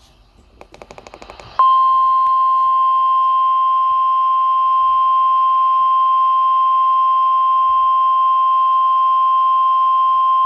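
Weather radio 1050 Hz warning alarm tone: after about a second of fast clicking, one steady high beep starts about a second and a half in and holds for about nine seconds. It signals that a new warning broadcast is about to follow.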